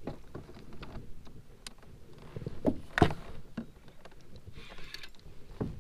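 Scattered knocks and bumps against a plastic kayak's hull as the paddler shifts and reaches over the side, the loudest knock about three seconds in.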